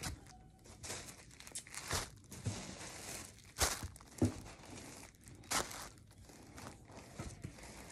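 Tissue paper and plastic wrapping crinkling and rustling in irregular handfuls as items are lifted out of a cardboard box, with a few sharper, louder crackles in the middle.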